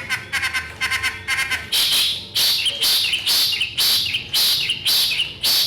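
A songbird calling: a quick run of chattering notes, then a steady series of loud, harsh calls about twice a second, each ending in a short twisting note.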